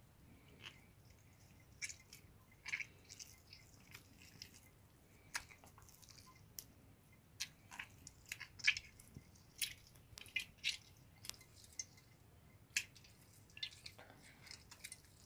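Warm, softened cheese curd being squeezed and worked by hand over a metal sieve: faint, irregular wet squishing with small sharp clicks.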